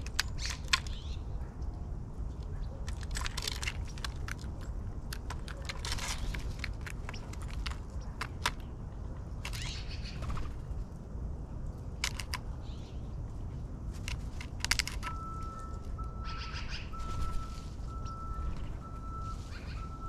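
Black-billed magpie pecking at peanuts and seed on a wooden platform feeder: scattered sharp taps, among short bird chirps and a steady low rumble. From about three quarters of the way in, a faint high steady tone comes and goes.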